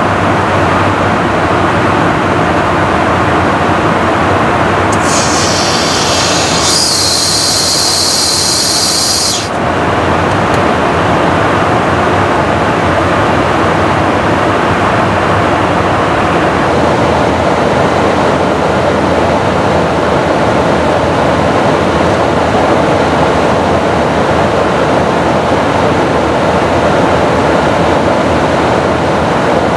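Steady, loud rushing noise of airflow and engines inside a KC-135 tanker's boom operator pod in flight. About five seconds in, a sharp high hiss rises over it for about four seconds, then stops.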